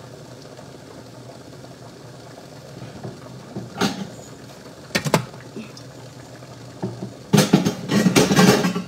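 Metal cookware and pot lids knocking and clattering as a lid is searched for: a few single knocks, then a longer run of clattering near the end, over a steady low kitchen hum.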